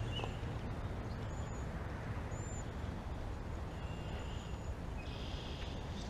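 Steady low outdoor background noise, with faint, short, high bird chirps a few times.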